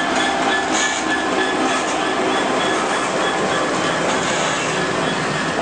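Passenger train rushing past close by: the cream-and-brown Pullman coaches behind an EWS Class 66 diesel locomotive, a loud, steady noise of wheels rolling on rails with some clickety-clack.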